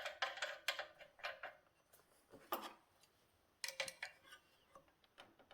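Light, irregular clicks and clinks of small metal parts being handled and set down; no motor is running.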